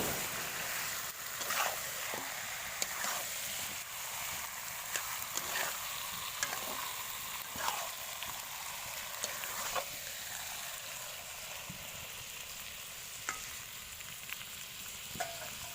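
Chicken curry sizzling steadily as it fries in a pan, with scattered scrapes and taps as it is stirred.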